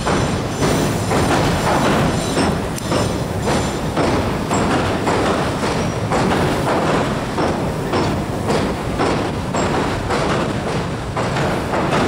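Tobu limited express Ryomo train crossing the steel truss railway bridge over the Sumida River as it pulls out: a steady rumble with repeated wheel thumps over the rail joints.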